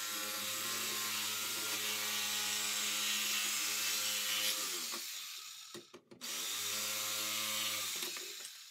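Electric jigsaw running and cutting circular holes in a plastic ice-chest lid. It stops about five seconds in, starts again with a rising spin-up a second later, then winds down near the end.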